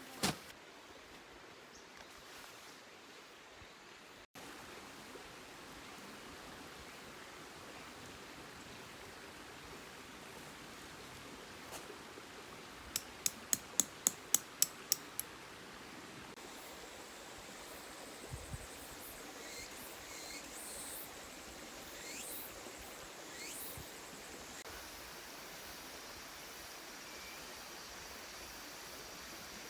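Steady rushing murmur of a mountain river. About halfway through comes a quick run of about eight sharp high ticks, and faint high chirps follow.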